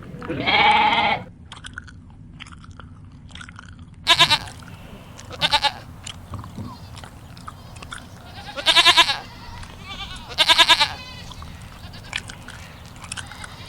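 Bleating livestock: one longer quavering bleat near the start, then four shorter bleats spread through the rest, with faint crunching clicks of chewing between the calls.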